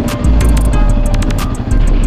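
Music with heavy bass and a beat of sharp percussion hits.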